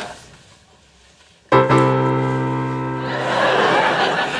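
A piano chord struck sharply about a second and a half in and left ringing as it slowly fades. From about halfway, a dense, crowd-like noise rises over it.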